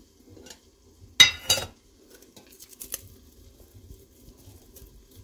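Metal lid of a tea tin pulled off with a short, ringing double clank about a second in, followed by faint crinkling and rustling as tea bags are picked out of the tin.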